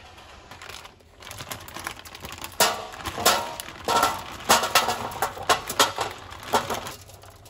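Frozen potato nuggets poured from a plastic bag onto a foil-lined baking tray: a run of sharp irregular clicks and rattles as the hard pieces land on the foil, with the bag and foil crinkling.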